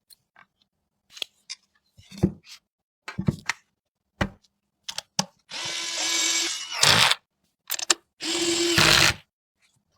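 Small electric screwdriver running in two short bursts of about a second each, one about halfway through and one near the end, driving screws. Clicks and taps of parts being handled come between the bursts.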